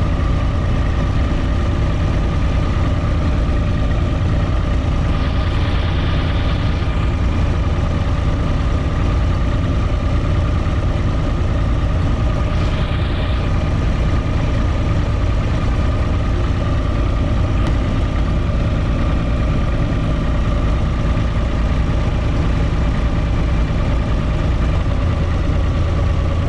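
UTB 445 DT tractor's four-cylinder diesel engine running steadily while driving, heard from inside the cab, with a brief hiss twice.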